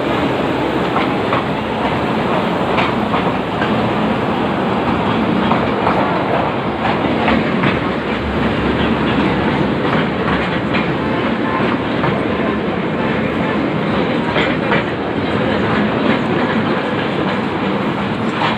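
Carriages of a miniature amusement-park train rolling past on the rails, their wheels clattering steadily with scattered sharp clicks.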